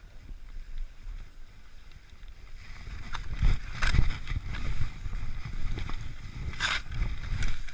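Wind buffeting the camera's microphone with a steady low rumble while descending a snowy ski trail. From about halfway in, edges hiss and scrape over packed snow, with a few sharper scrapes on the turns.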